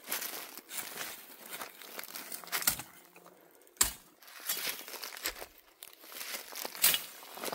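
Dry debris crunching and rustling underfoot as people move over loose ground, with a few sharp knocks about three, four and seven seconds in.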